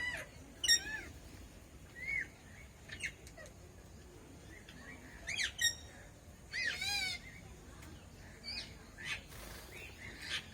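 Red-breasted parakeets giving short, sharp calls at irregular intervals, with one longer call about seven seconds in.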